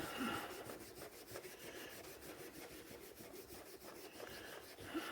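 Faint scratchy rubbing as heat-softened paint is rubbed down by hand from an old hand drill.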